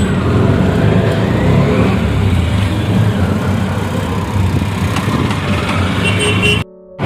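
Auto-rickshaw engine running steadily with a low rumble and road noise, heard from inside the moving auto. The sound cuts out briefly near the end.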